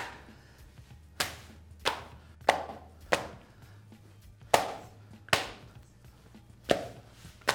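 A thin sheet of feteer dough being stretched by hand and slapped down onto a wooden board, about eight sharp slaps at uneven intervals.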